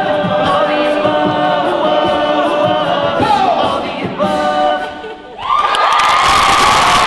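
A cappella vocal group singing close chords over a vocal-percussion beat, stopping about five seconds in. The crowd then bursts into cheering and applause while a high note is held.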